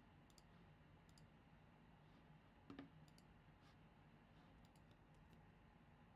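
Near silence with scattered faint clicks of a computer mouse, about ten in all, one a little louder near the middle.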